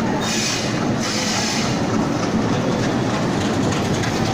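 Indian Railways WDG diesel locomotives passing slowly just below, their engines running and their wheels rolling on the rails in a steady noise, with a brief hiss in the first second or so.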